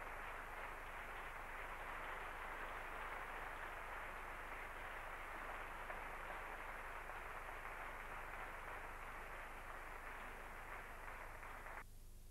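A theatre audience applauding steadily, then cutting off suddenly near the end. A low mains hum runs underneath.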